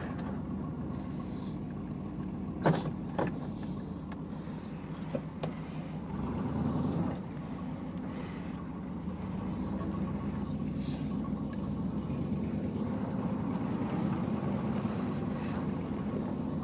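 Old Chevy 2500 4x4 pickup's engine running steadily, heard from inside the cab, with two short knocks about three seconds in. The engine note swells briefly around six seconds and then rises gently as the truck is driven off.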